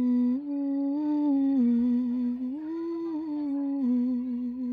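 A woman humming a slow, wordless tune, long notes stepping gently up and down in pitch.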